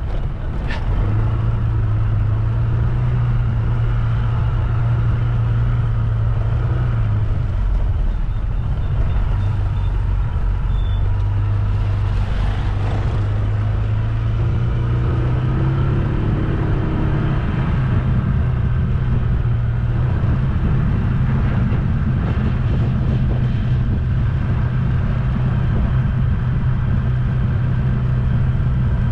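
Vehicle engine and road noise while driving: a steady low engine drone whose pitch steps up about a second in, drops around seven seconds in and rises again later as the speed changes.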